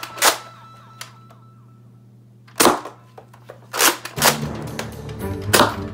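Sharp plastic snaps and clacks from a Nerf Fortnite toy blaster being worked by hand, about five or six, spaced irregularly. Background music comes back in about four seconds in.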